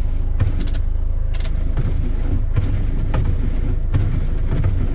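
Vehicle engine idling steadily, with a few light clicks and knocks over the top.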